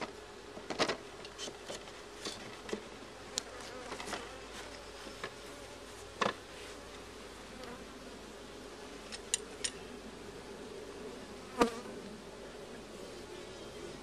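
Honey bees buzzing steadily at an open hive, with a few sharp wooden knocks and clicks as a frame of wax foundation is set into the hive box; the loudest knock comes near the end.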